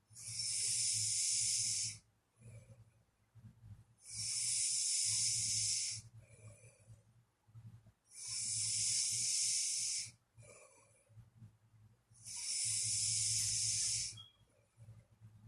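A sleeping person snoring with a breathy hiss: four long, even breaths of about two seconds each, roughly four seconds apart.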